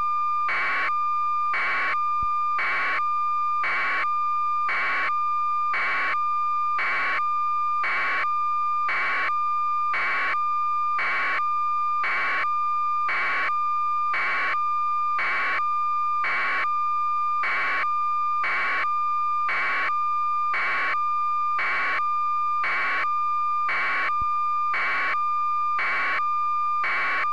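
Electronic beeping: a steady high-pitched tone pulsing evenly, about three beeps every two seconds, over a fainter continuous tone, with no change in level.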